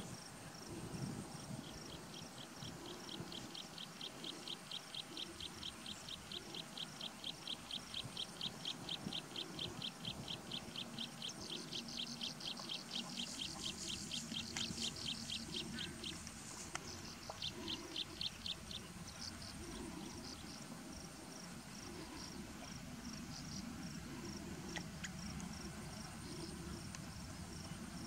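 Outdoor ambience of a high chirping call repeated evenly about four times a second for over ten seconds, then breaking into a few shorter runs, with fainter high chirps steady behind it.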